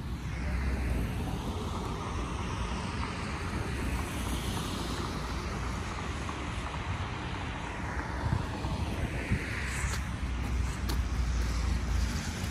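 Road traffic going by: two cars pass in turn, their noise swelling and fading, over a steady wind rumble on the microphone.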